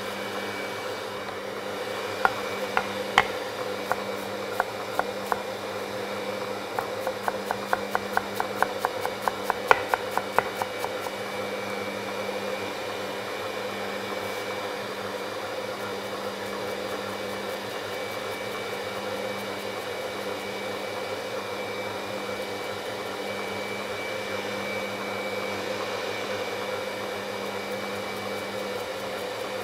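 An electric mixer runs with a steady motor hum, creaming room-temperature vegan butter until fluffy. Over it a chef's knife taps on a bamboo cutting board as herbs are sliced, in quick runs of strokes from about two to eleven seconds in.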